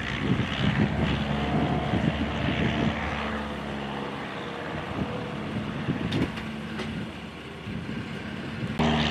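Single-engine light taildragger airplane's piston engine and propeller running at high power as it lifts off and climbs out, a steady buzz that swells briefly near the end.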